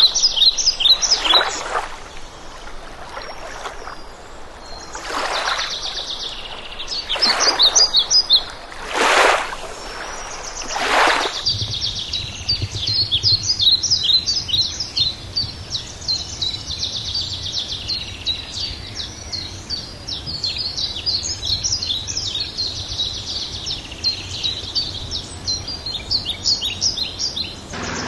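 Kayak paddle strokes swishing through the water every second or two, with birds singing. About eleven seconds in the paddling stops, and a dense chorus of birdsong carries on over a low steady hum.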